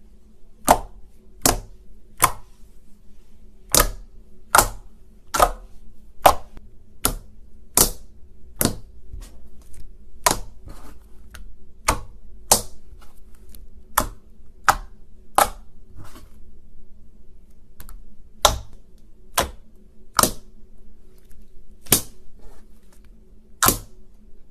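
Slime being played with by hand, giving sharp popping clicks, roughly one every three-quarters of a second, over a faint steady hum.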